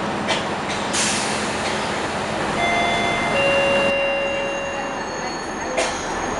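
Cabin noise of a Scania L113CRL bus slowing for a stop, with a burst of air hiss about a second in. From about two and a half seconds, high squealing tones at several pitches from the brakes, ending with a sharp click.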